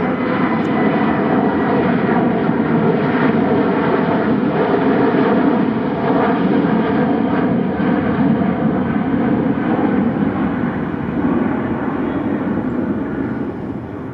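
Passenger airliner's engines, a loud steady roar that fades over the last few seconds as the plane moves away.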